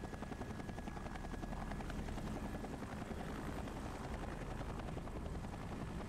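Helicopter in flight, a steady, rapid beating of its rotor.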